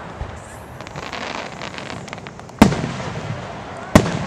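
Aerial fireworks shells bursting: two loud bangs about two and a half seconds in and a second and a half later, each trailing off in a rumbling echo. Scattered light crackling comes before them.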